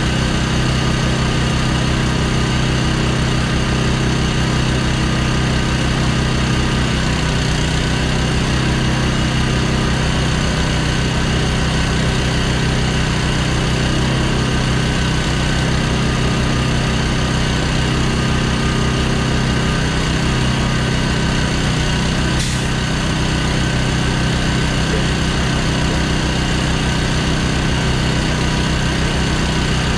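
Small gasoline pony motor on an RGN lowboy's gooseneck, the engine that drives the trailer's hydraulics, running steadily. A single short click sounds about three-quarters of the way through.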